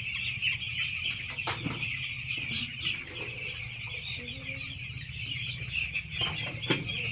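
A flock of week-old chicks peeping continuously, many high chirps overlapping, over a steady low hum, with a few short knocks.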